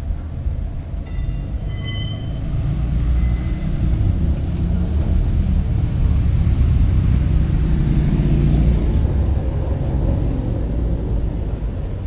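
Kirnitzschtalbahn tram rolling into the stop and past close by: a low rumble of wheels and running gear that swells to its loudest midway, then eases as the cars slow. A few brief high tones sound about a second in.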